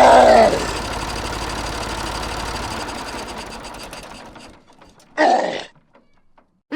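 A small electric motor running with a steady buzzing whir, fading away over about four seconds. A short exclaimed voice sound overlaps the start, and a brief burst of noise comes about five seconds in.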